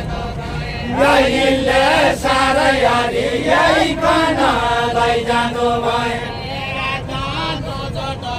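Deuda folk singing: voices chanting a drawn-out melodic line with a wavering pitch, growing louder about a second in.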